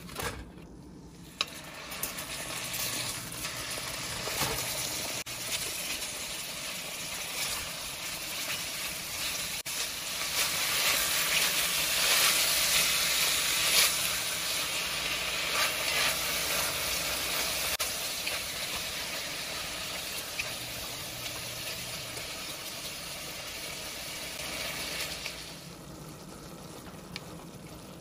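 Raw ground beef sizzling in hot olive oil as it browns, stirred and broken up with a wooden spoon. The sizzle starts about two seconds in, is loudest around the middle and dies down near the end.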